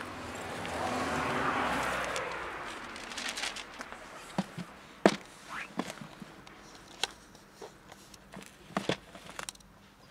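Sharp plastic clicks and knocks from a lidded clip-latch plastic food container being tapped and handled, scattered irregularly, the loudest about five seconds in. A rushing noise swells and fades over the first two seconds.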